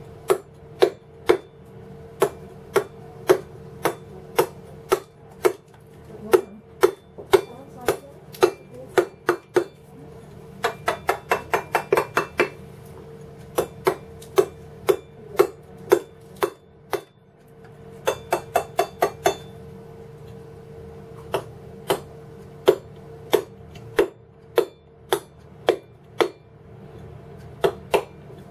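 Wooden mallet striking a cold steel chisel into stone, sharp taps at about one or two a second, with quicker runs of lighter taps around the middle and again about two-thirds through. A steady hum runs underneath.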